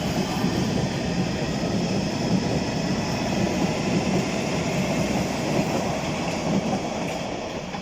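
London Underground Metropolitan line train pulling out of the platform, a steady rumble of wheels and motors that fades away near the end.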